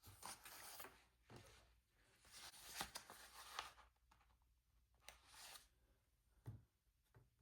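Faint rustling of paper and sticker sheets being handled, in several soft spells, with a short tap about six and a half seconds in.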